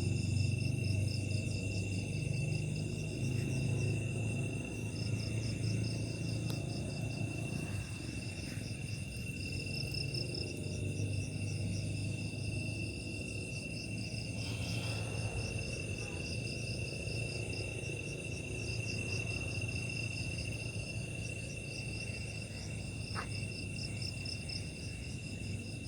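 Night insects chirring: one steady high-pitched whine with fast, pulsing cricket-like trills above it, unbroken throughout. Under them runs a steady low hum.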